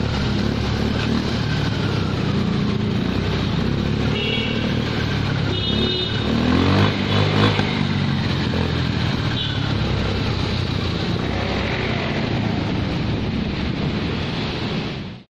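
Suzuki Hayate scooter's single-cylinder four-stroke engine running through an aftermarket Exos X6 slip-on exhaust, with a couple of short revs about seven seconds in. The sound cuts off suddenly near the end.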